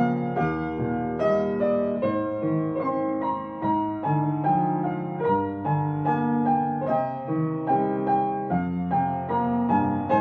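Piano music: a gentle, steady run of notes over sustained lower chords, with no natural outdoor sounds audible.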